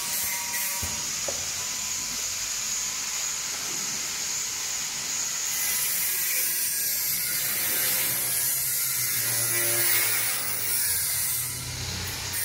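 Semi-automatic carton tape-wrapping machine running with a steady whirring hiss.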